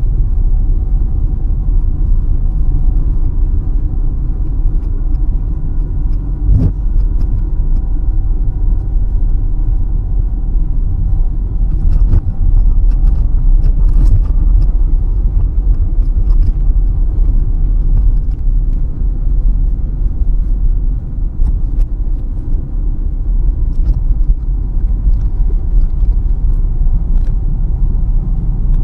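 Car driving on a country road heard from inside the cabin: a steady low rumble of engine and tyres on the road, with faint scattered ticks.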